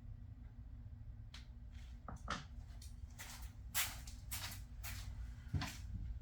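A string of light clicks and taps, about a dozen, irregularly spaced and starting a little over a second in, over a steady low hum: a small toy car and track parts being handled and reset between runs.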